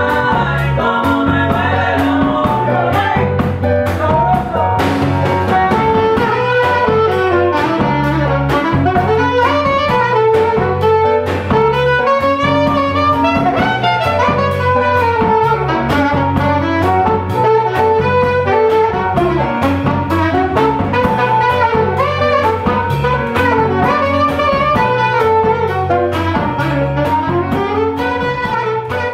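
Live Latin band playing an upbeat tune: saxophone carrying a melody in repeated rising and falling phrases over keyboard, electric bass and drum kit.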